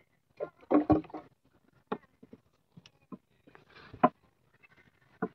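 A few sharp wooden knocks in a small wooden boat: one about two seconds in, a louder one near four seconds and another near the end. They follow a brief murmur of voice about a second in.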